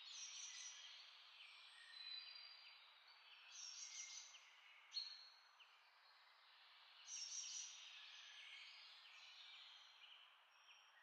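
Faint birdsong: many short chirps and whistles from several birds over a steady hiss.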